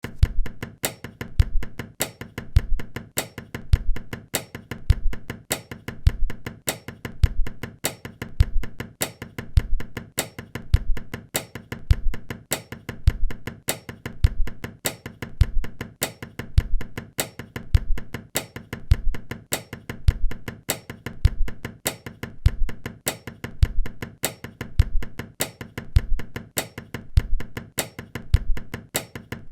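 An even percussive rhythm of knocks and taps, cut from shoemaking work sounds such as hammering and cutting, with a deep thump about once a second and lighter sharp knocks between.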